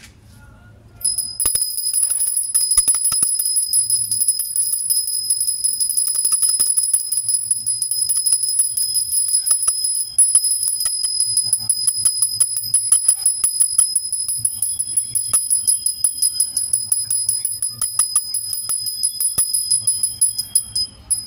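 Small brass puja hand bell rung rapidly and without a break during an aarti, a bright, high ringing. It starts about a second in and stops just before the end.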